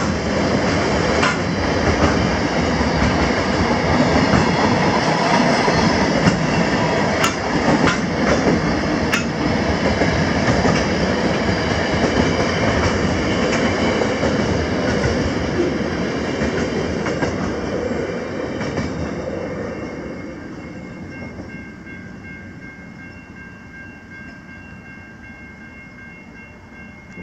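Wagons of a freight train rolling past on the rails: a steady, loud rumble of wheels and couplings, with two sharp clicks about seven and nine seconds in. After about eighteen seconds the noise fades away as the end of the train goes by.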